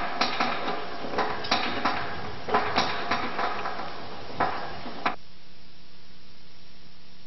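Irregular sharp metallic clanks and knocks, about a dozen in five seconds, from the chairlift's hardware as a felled tree strikes the moving lift. They cut off suddenly about five seconds in, leaving a steady low hum.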